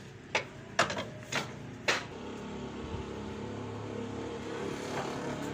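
Old Ruston Hornsby stationary engine: four sharp knocks about half a second apart, then a steady low mechanical drone from about two seconds in.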